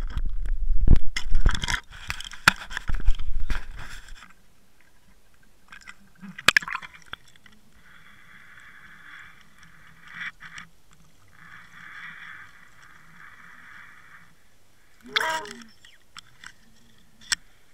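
Underwater camera's housing picking up a rush of heavy knocks, scraping and rumbling water for about four seconds, then a quiet stretch with a click, two spells of faint hum and a couple of short gurgles near the end.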